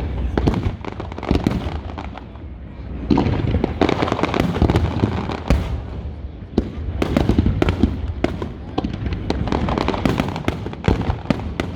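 Fireworks display: many sharp bangs and crackles from exploding aerial shells in dense volleys, easing briefly around two to three seconds in before picking up again.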